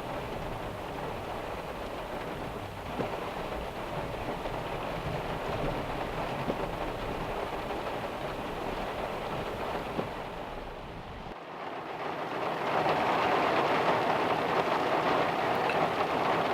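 Heavy rain falling steadily, with a low rumble under it for the first two-thirds. About eleven seconds in, the rumble drops away and the rain hiss becomes louder and closer.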